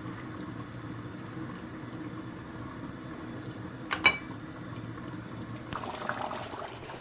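Pot of salted water heating on the stove, close to the boil, giving a steady low simmering noise. One sharp clink with a brief ring about four seconds in.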